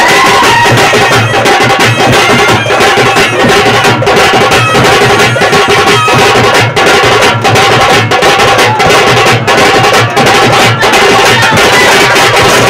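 Loud traditional Veeragase dance accompaniment: dense drumming with a steady held tone underneath.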